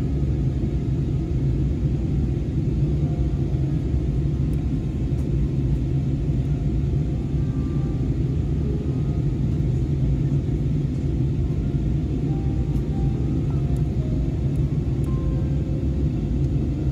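Airbus airliner cabin noise in flight: a steady, even low rumble of engines and airflow.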